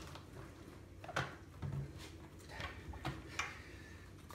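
Light, scattered knocks and clicks of plastic being handled: a spray bottle and the lid of a plastic fermenting bucket, about four small taps a second or so apart.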